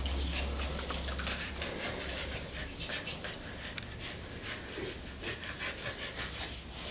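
Samoyed puppies panting, with many short scratchy rustles running through it.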